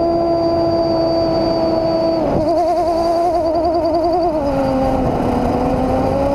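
Quadcopter motors and propellers (SunnySky 2216 1100kv motors with HQProp 9x5 props) whining at high throttle. The pitch drops about two seconds in and wavers rapidly, about five times a second, for about two seconds, then sags lower and climbs back near the end. The uploader takes the wobble for oscillation from P gains set too high.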